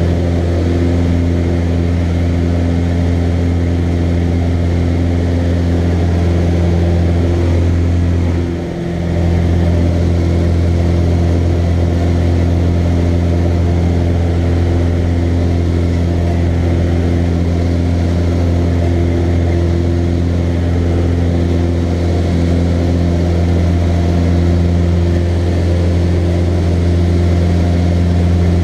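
Cessna 150L's four-cylinder Continental O-200 engine and propeller running steadily during the climb-out after takeoff, a loud, even drone heard from inside the cockpit. The level dips briefly about nine seconds in.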